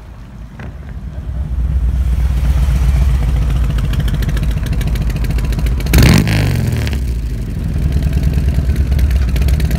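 Harley-Davidson Milwaukee-Eight V-twin breathing through an SVT Boneshakers full exhaust, rumbling with a low pulsing beat that builds from about a second in. About six seconds in there is one sharp, loud throttle blip whose revs fall away, then the rumble picks up again.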